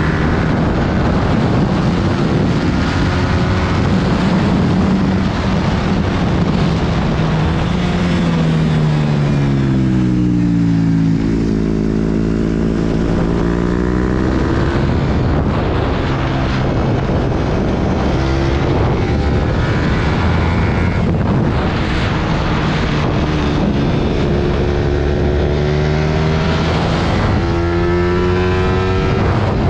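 Sport motorcycle engine heard from on board while lapping a track. The revs drop about eight seconds in as the bike slows, climb again from about eleven seconds as it accelerates through the gears, and change once more near the end.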